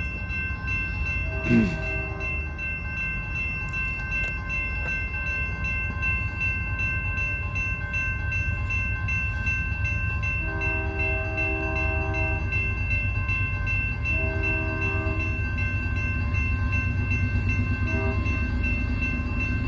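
A CSX diesel freight train approaching slowly, its locomotive rumble steady underneath while grade-crossing bells ring throughout. The locomotive's multi-chime horn sounds a long blast about halfway through, a shorter one a few seconds later and a brief toot near the end.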